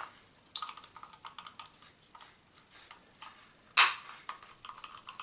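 Small plastic clicks and taps as the parts and plastic shell of a Victsing computer mouse are handled and fitted back together, with one louder click a little under four seconds in.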